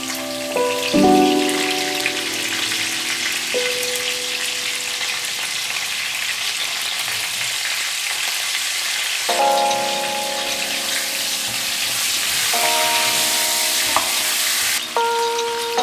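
Beef pieces sizzling in a hot non-stick frying pan: a steady frying hiss that swells late on and stops abruptly near the end. Soft background music with sustained chord notes plays over it at the start and again in the second half.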